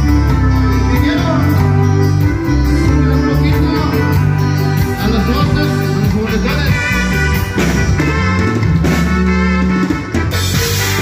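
A Latin band playing live, with drums keeping a steady beat under bass and other instruments.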